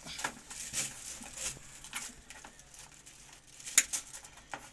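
Pliers cutting and stripping the plastic insulation of a white electrical cable: a series of short clicks and scrapes, the sharpest about four seconds in.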